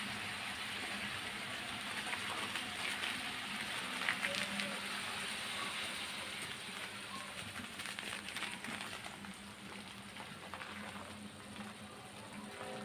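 Sambal goreng sauce made with coconut milk simmering in a pan: steady bubbling and crackling, with a faint low hum underneath, easing off a little in the second half.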